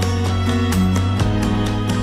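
Background music with a quick steady beat.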